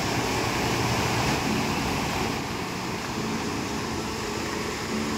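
Teesta River in flash flood rushing past, a steady noise of fast, turbulent floodwater, with a faint low hum underneath at times.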